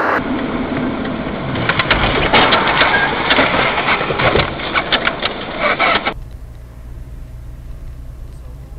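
Dense crackling and crunching clicks, loud and irregular, for about six seconds. They stop abruptly and a steady low rumble of a car driving takes over.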